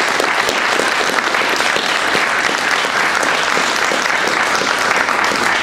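An audience applauding: many people clapping in a dense, steady patter.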